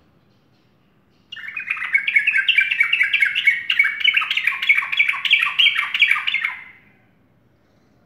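Caged yellow-vented bulbul (trucukan) singing a fast, continuous run of chattering notes, about four or five a second, starting a little over a second in and stopping shortly before the end.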